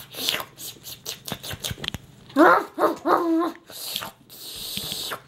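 A pet dog right up at the microphone, sniffing in quick short snuffles, then giving two short barks about two seconds in, followed by a breathy hiss near the end.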